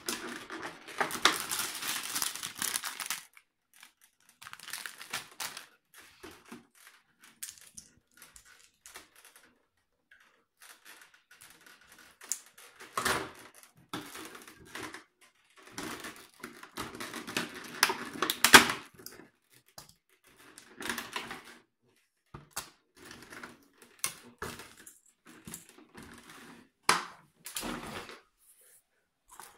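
Unpacking by hand: plastic packaging bags rustling and crinkling in bursts, with clicks and knocks of hard plastic drone parts being handled and set down.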